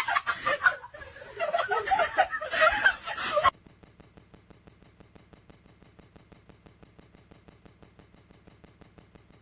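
A person laughing and chuckling, cutting off suddenly about three and a half seconds in, followed by near silence.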